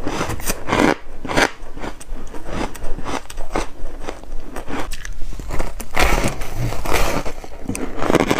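A mouth chewing and crunching chunks of powdery frozen matcha ice, a quick irregular run of crisp crunches that is loudest about six seconds in.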